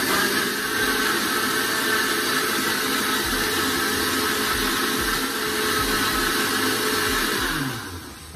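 Countertop blender motor running steadily, churning a full jug of thick papaya punch. It is switched off near the end, and the motor winds down with a falling pitch.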